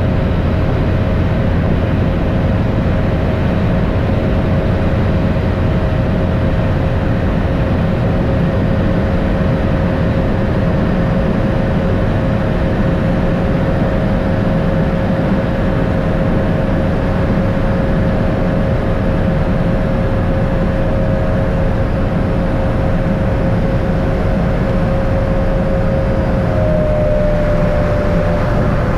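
Cessna U206 Soloy's turboprop engine and propeller running steadily, heard from inside the cabin on the landing approach: a loud, even rumble with a steady high whine over it. Near the end the whine falls slightly in pitch as the power comes back.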